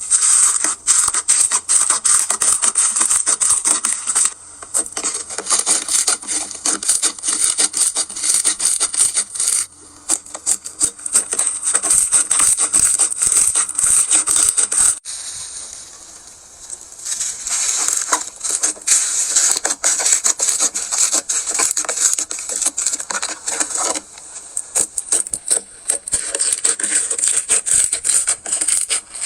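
Crunchy slime being squeezed and pressed by hand: dense crackling and popping, in stretches broken by brief pauses.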